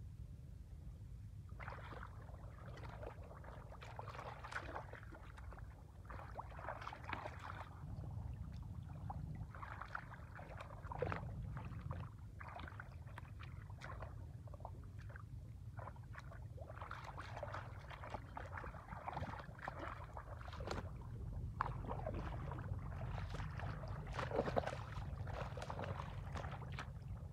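Shallow muddy water splashing and sloshing in irregular bursts as hands and bare feet churn through it while groping for fish, over a steady low rumble.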